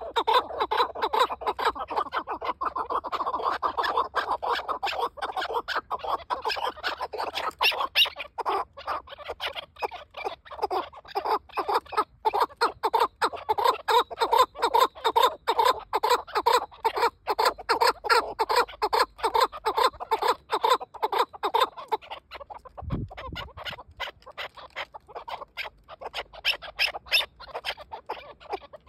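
Chukar partridge giving a long run of rapid, repeated clucking calls. The calls pause about 23 s in, where there is a single low thump, and then come back more spaced out.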